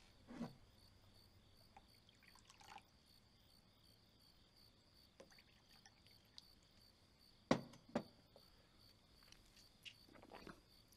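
Wine trickling from a porcelain pitcher into a small cup, quiet, with light clinks of porcelain tableware. Two sharp clinks half a second apart, about seven and a half seconds in, are the loudest sounds.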